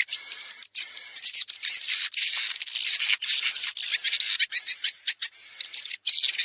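Swiftlet call lure recording: a dense, continuous chatter of high-pitched chirps and twitters from many swiftlets, mostly adult calls mixed with a smaller share of chick calls, played to draw swiftlets to a nesting house.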